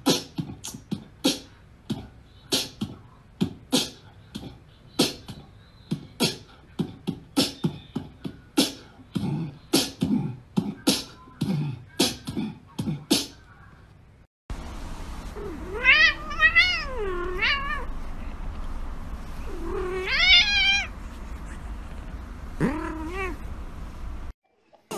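A cat meowing: a long call that rises and falls, a second drawn-out one, then a short one, over a low steady hum. Before it comes a long run of short taps or knocks at uneven spacing.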